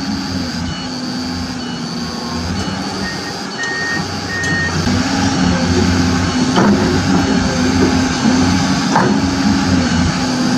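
Heavy-machinery engine running steadily, with short high beeps repeating like a reversing alarm. Two sharp clicks in the second half.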